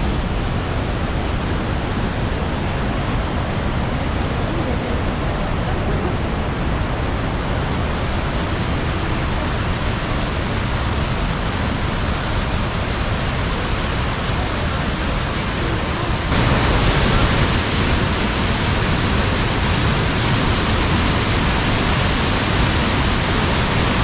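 Steady rushing of a large river waterfall, the Rhine Falls, as one continuous noise; it turns louder and brighter about two-thirds of the way through.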